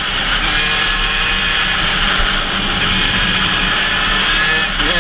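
KTM 85 SX single-cylinder two-stroke engine running at high revs under a riding load, a high-pitched whine holding fairly steady.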